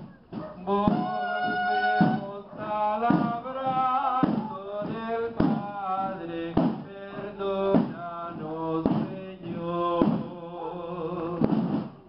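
Slow religious hymn sung with long held notes over a regular beat that falls about once a second.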